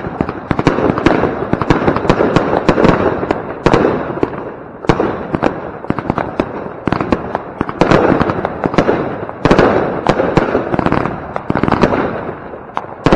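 Two Funke 'Funkenweiden' willow firework batteries firing shot after shot, with a fresh launch-and-burst surge every one to three seconds over continuous rapid crackling.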